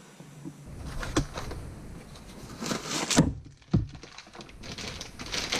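Handling noises of workshop parts: a few separate clunks and knocks, the loudest a bit past halfway, with short rustles between them.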